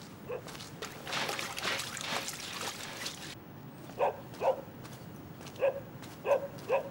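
A dog barking in short single barks, several coming in pairs about half a second apart. A couple of seconds of hissing noise run under it about a second in.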